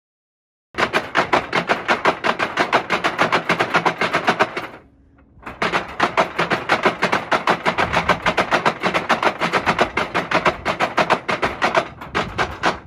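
Hand-worked wooden noise-maker sculpture clattering: its wooden strikers knock in a rapid, even rattle of about ten strikes a second. It breaks off briefly a little before halfway, then starts up again.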